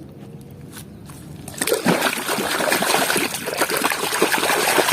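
Water running and splashing as a muddy plastic toy is washed, starting suddenly about a second and a half in.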